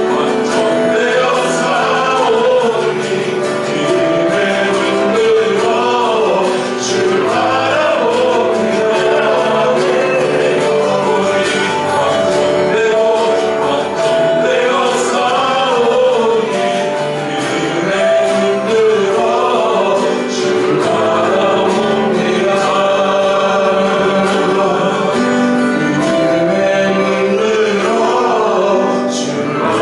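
Praise team singing a worship song with instrumental accompaniment.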